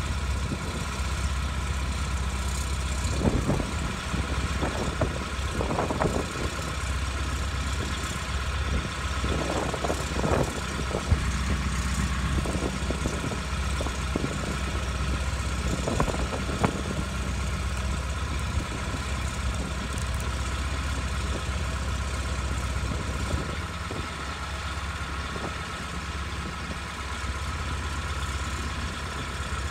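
Truck-mounted telescopic crane's engine running steadily while the crane handles a load, with a few brief knocks and clanks.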